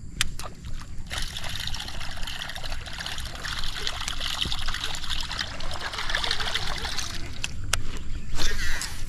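Water trickling and splashing for several seconds, over a low steady rumble, with a few sharp clicks.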